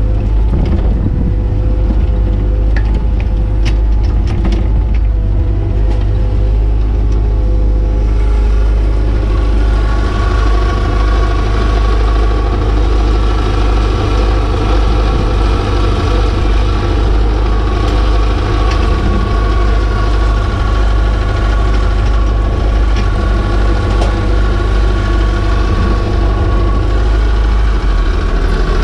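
JCB 802 mini excavator's diesel engine running steadily, heard from inside the cab while the boom and log grab are worked. A steady hydraulic whine joins about eight seconds in, with a few light knocks around four seconds in.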